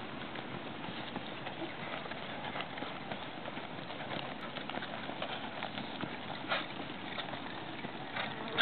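Hoofbeats of an Azteca mare cantering on dry, loose dirt: a continuous run of soft hoof strikes, with a couple of sharper knocks near the end.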